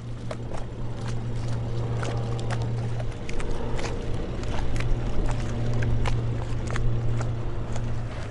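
Single-engine Cessna Caravan turboprop flying past low: a steady low propeller drone that drops out briefly about five seconds in, with scattered sharp clicks over it.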